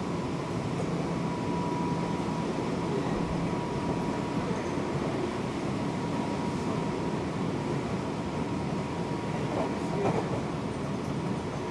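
Seibu 6000 series electric train running, heard from inside a motor car: a steady rumble of wheels on rail, with a thin steady high tone running through it.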